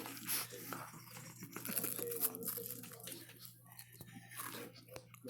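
Close-up, irregular crunching of a Nature Valley Crunchy granola bar being bitten and chewed.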